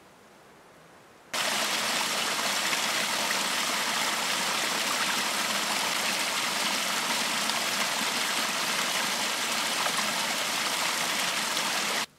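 Small woodland stream falling over a mossy rock step: a steady rush and splash of water that starts abruptly a little over a second in and cuts off just before the end. Before it, only a faint hiss.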